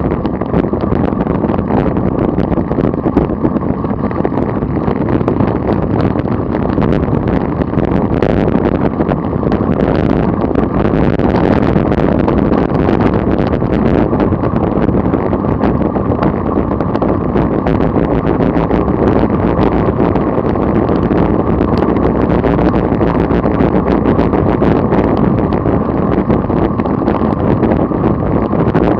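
Wind rushing over the microphone of a camera mounted on a road bicycle at about 30 mph: a loud, steady buffeting roar with no break.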